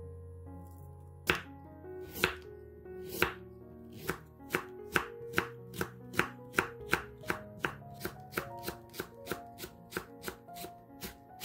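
Chef's knife slicing carrot into matchsticks and then green onion into rounds on a wooden cutting board. Three spaced strokes come first, then steady chopping at about two to three strokes a second, with soft background music underneath.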